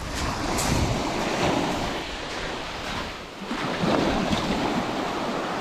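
Small surf washing up a fine-gravel beach, swelling twice about two and a half seconds apart.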